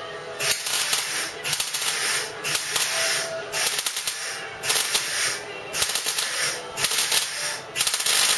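MIG welder crackling in about eight short bursts, each under a second long. It is stitch-welding a butt joint in thin car body sheet steel, pushing weld into a gap of a couple of millimetres.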